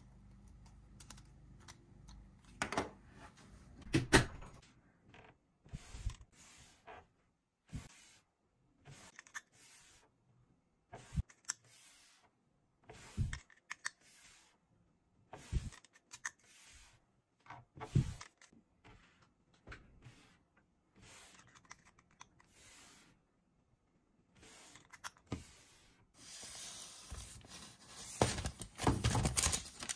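Plastic toy flashlight projector being handled, with many separate sharp clicks and knocks as its parts are fiddled with and its projector disc is turned. From about 26 seconds in, a plastic package rustles and crinkles.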